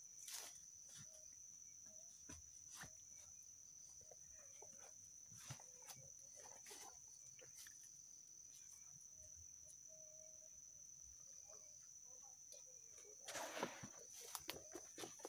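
A steady high-pitched insect drone, with scattered soft clicks and rustles of a backpack being handled. About 13 seconds in comes a louder rustling as a rolled sleeping mat is pulled off the pack.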